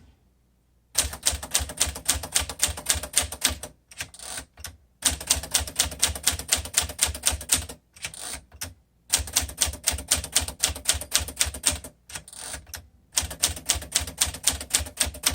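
1952 Smith Corona Sterling manual typewriter being typed on: fast runs of sharp key strikes, about seven a second, in four bursts with short pauses between.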